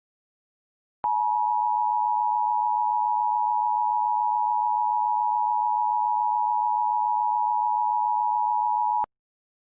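Emergency Alert System attention signal: a steady two-note tone that starts about a second in, holds at an even level for about eight seconds and cuts off abruptly. It announces the civil danger warning that follows.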